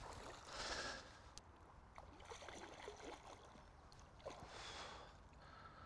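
A small hooked mirror carp splashing at the water's surface, played out and ready for the net: faint splashing about half a second in and again about four and a half seconds in.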